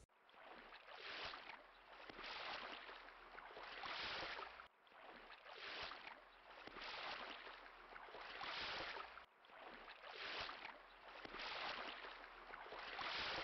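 Small waves lapping, the water noise rising and falling in soft swells about every one and a half seconds, with two brief dropouts.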